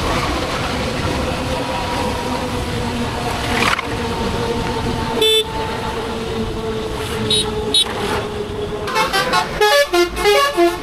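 Wind and road noise while riding a two-wheeler in traffic, with vehicle horns: a short toot about five seconds in and two quick high beeps a couple of seconds later. Voices start near the end.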